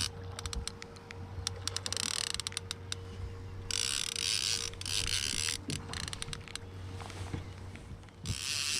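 Fishing reel being cranked to bring in a hooked striped bass: runs of rapid ratcheting clicks, with stretches of steady whirring in between.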